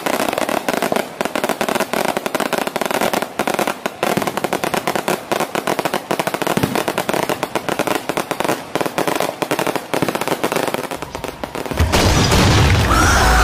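A long string of firecrackers crackling in rapid, uneven succession. About twelve seconds in, a loud low rumbling impact sound effect takes over.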